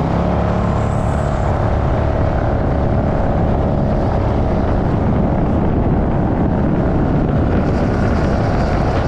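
A 1977 Spectra jet boat's freshly rebuilt 454 big-block Chevy V8 running steadily at speed. Its pitch holds level under a loud rush of water spray and wind.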